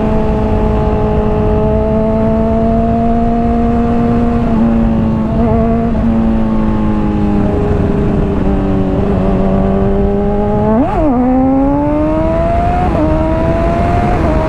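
Honda CBR600RR's inline-four engine through a Hotbodies Stinger slip-on exhaust, heard from the rider's helmet with wind rush underneath. The engine note sags slowly as the bike rolls along, gives a quick sharp rev about eleven seconds in, then climbs steadily in pitch as it accelerates.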